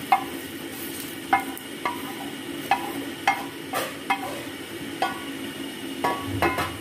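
A wooden spatula scraping and knocking stir-fried shiitake mushrooms out of a pan into a stainless steel pot of broth: about ten short, ringing knocks at an uneven pace over a steady low hum.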